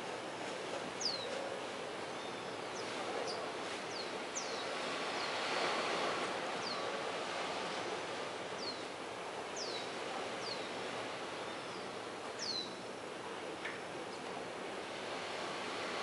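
Steady wash of sea surf and wind. Over it a bird gives short, high whistles that slide downward in pitch, about one every second or two.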